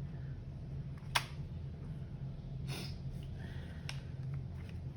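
Laptop disassembly handling noise: a sharp click about a second in, a short scrape near the middle and another click near the end, as plastic parts and screws on the laptop's underside are worked loose. A steady low hum runs underneath.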